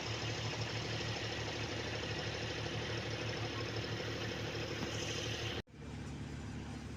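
An engine running steadily at a constant speed. About five and a half seconds in it cuts off abruptly, and a similar, slightly quieter engine sound continues.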